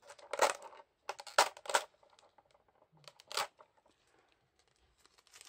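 Clear plastic packaging around figure parts crinkling as it is handled, in several short rustling bursts, the loudest in the first two seconds.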